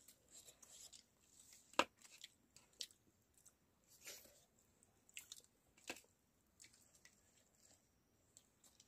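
Faint eating sounds of people eating rice by hand: chewing and a scattering of short smacks and clicks, the sharpest about two seconds in.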